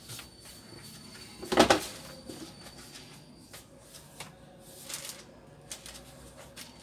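A brief, loud knock about one and a half seconds in, then a few faint clicks.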